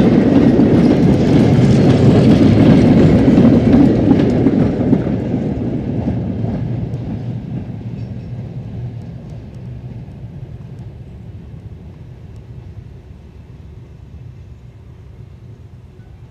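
Goods train wagons rolling past on the rails, a steady rumble and clatter over the rail joints that fades away from about five seconds in as the brake van goes by and the train draws off.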